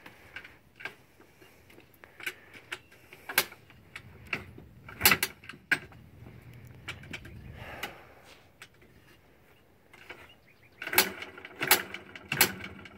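Cold-start attempts on a Yamaha Blaster 200 two-stroke quad: repeated sharp metallic clanks of the kick-start lever, with a short low rumble about halfway through. The engine nearly catches but does not start.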